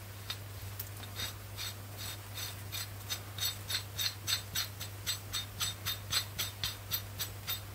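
A steel lug nut being spun by hand down a wheel stud on a wheel hub, with light metallic ticks about three a second as it turns on the threads.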